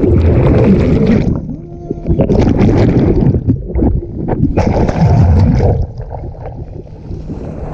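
Water churning, splashing and gurgling around the camera as a water jetpack rider dives under and bursts back out of the water. It comes in three loud surges of about a second each, with quieter gaps between.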